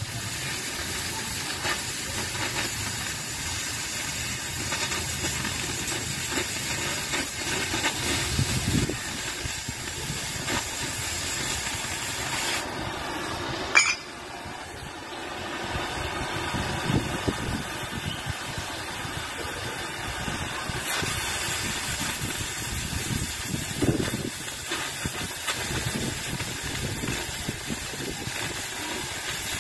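Oxy-fuel gas cutting torch hissing steadily as it cuts a steel plate. A sharp click comes just before the middle, then the sound drops for a couple of seconds and builds back to the same steady hiss.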